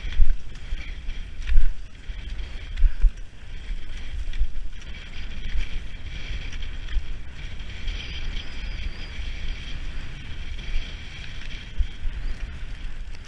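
Wind rumbling and buffeting on a moving skier's camera microphone, with a few louder bumps in the first three seconds, over a steady hiss of cross-country skis gliding on snow.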